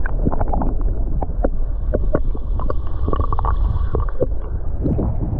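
Strong wind buffeting the microphone with a heavy low rumble, over water sloshing and splashing in many short irregular strokes.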